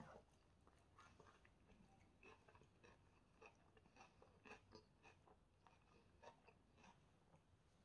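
Faint close-up eating sounds: chewing chicken shawarma and pita bread, with many small irregular clicks and crackles.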